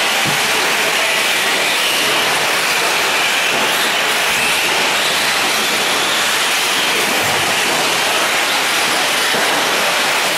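Electric 4WD short-course RC trucks racing on a dirt track: a loud, steady hiss of electric motors and tyres on dirt.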